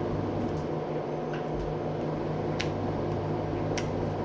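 LG direct-drive 8.5 kg washing machine spinning out a light load in its 1400 RPM spin: a steady motor and drum hum with a few light clicks.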